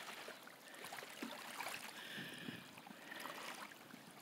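Faint sound of small waves lapping at the water's edge, with a steady outdoor hiss.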